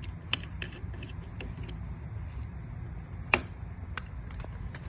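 Scattered small clicks and taps of the left motor's wires being unplugged from the wheelchair's controller terminals, the loudest click a little past halfway, over a steady low hum.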